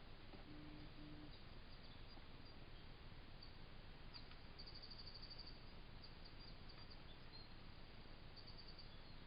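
Near silence: the steady hiss of a wildlife camera's microphone, with faint high chirps and a short rapid trill about five seconds in, and another near the end.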